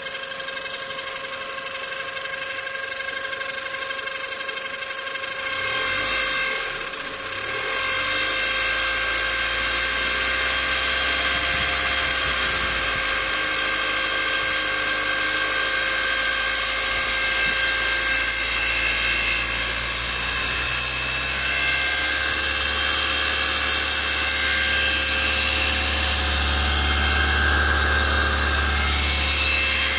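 Renault Clio 1.2 16v four-cylinder petrol engine idling with a steady high-pitched whining buzz made of several constant tones. A deeper hum joins about six seconds in and swells near the end. This is the abnormal noise the owner says appears after about ten minutes of running and that the Renault service could not diagnose.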